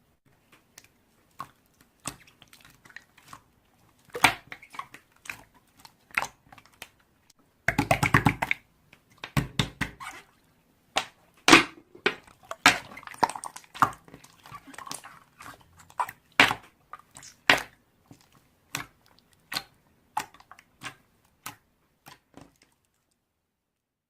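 Slime being squished and pressed by hand: irregular sticky clicks and pops of trapped air, with a dense run of rapid crackling about eight seconds in.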